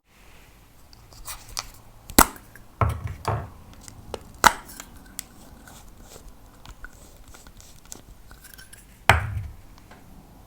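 Small objects being handled on a table: scattered sharp clicks and knocks, with a few duller thuds about three seconds in and again near nine seconds.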